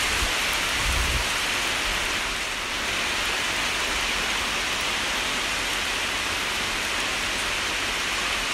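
Heavy rain pouring steadily in a strong wind, a dense even hiss, with a brief low rumble of wind about a second in.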